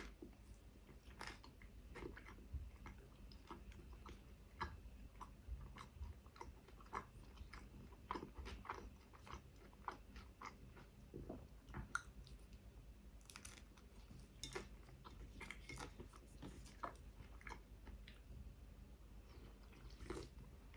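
Close-miked chewing and biting of a chicken shawarma wrap: many soft, irregular wet mouth clicks, with a few crisper crunches.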